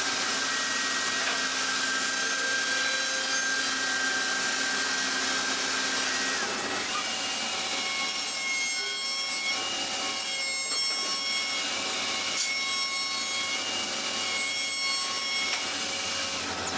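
Power tool working wood: a steady grinding noise with a faint high whine that changes pitch about six to seven seconds in.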